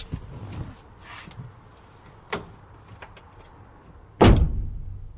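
A few light clicks and a short rustle, then one loud thump about four seconds in that dies away over a second.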